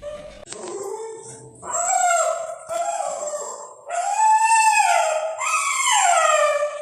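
A frightened puppy howling and whining in about five drawn-out, arching cries, one after another, each about a second long.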